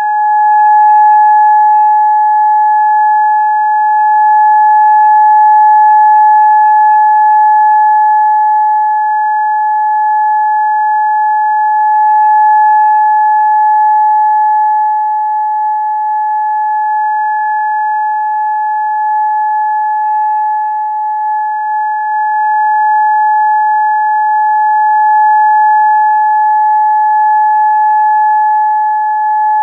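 Siren sound effect holding one steady, unwavering high tone with a couple of faint overtones, swelling and dipping slightly in loudness but never changing pitch.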